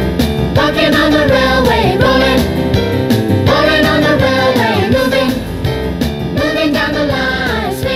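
Music: a children's-style song track with a melody in phrases that recur about every three seconds over a steady accompaniment.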